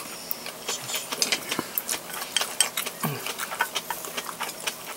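Close-up eating sounds: chewing with wet mouth clicks and wooden chopsticks clicking against a ceramic rice bowl, in quick irregular clicks. A short low sound falling in pitch comes about three seconds in.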